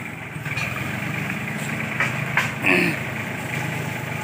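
Farm tractor engine idling steadily. About two seconds in come a couple of short knocks, then a brief higher-pitched sound.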